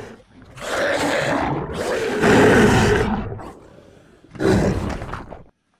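Roaring, a rough monster-style roar sound effect: one long roar, then a shorter one, cutting off suddenly into silence.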